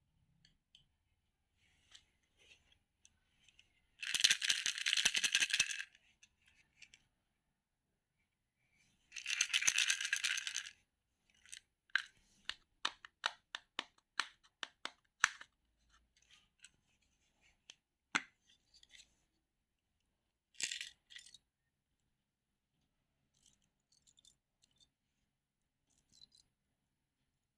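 Two bursts of rattling, each about two seconds long, followed by a quick run of sharp clicks and a few more scattered clicks and rattles.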